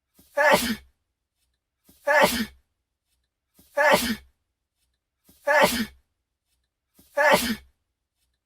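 A man's sneeze, the same single sneeze repeated on a loop about every 1.7 seconds, five times, with silence between.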